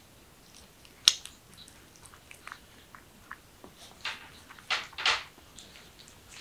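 A kitten biting and gnawing at a hand that is rubbing it, making small scattered clicks and ticks. There is one sharp click about a second in, and three short scratchy rustles in the second half.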